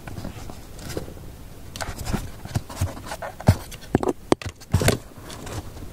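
Handling noise as something is moved about and set in place by hand: rustling and scraping, with a few sharp clicks and knocks, the loudest in the second half.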